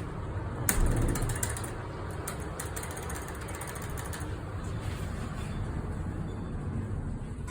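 Schindler elevator mechanism: a sharp clunk about a second in, followed by a quick run of clicks, over a steady low mechanical hum.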